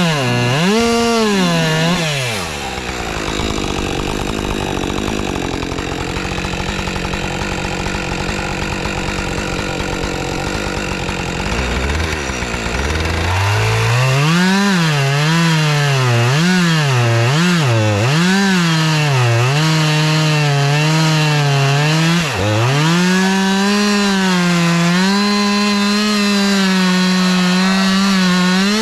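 Husqvarna 550 XP chainsaw cutting into a log: the saw bogs down under load for about ten seconds, then revs up and down repeatedly before holding a steady high speed for the last several seconds.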